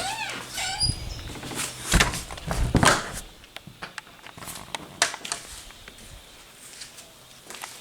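Scattered thuds and knocks, loudest in the first three seconds and then fainter, with a few quick high chirps in the first second.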